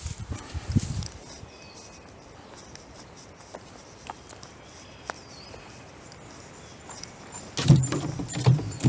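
Footsteps crunching through dry leaf litter, then a quiet stretch with a few faint ticks. Near the end, loud crunching and clattering as a storm-downed birch branch is thrown onto brush piled in a yard cart.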